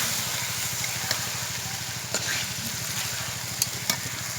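Chicken frying in spice paste in a cooking pot, a steady sizzle, with a few sharp clicks against the pot about two, three and a half and four seconds in. Under it runs a steady low hum.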